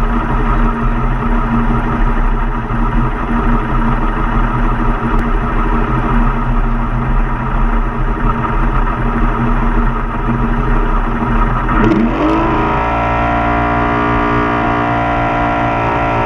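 Motorboat engine running at low speed with water rushing behind the hull. About twelve seconds in, the throttle opens, the engine pitch rises and settles into a steady higher drone as the boat pulls a kneeboarder up to speed.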